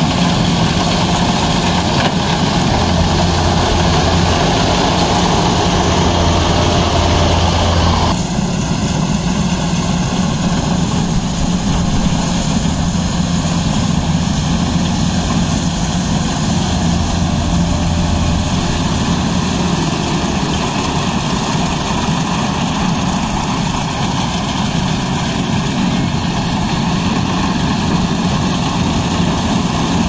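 Kubota DC-93G combine harvester running while cutting rice: a steady engine hum under the whir of its machinery. About eight seconds in, the sound changes abruptly as the higher, brighter part of the noise drops away.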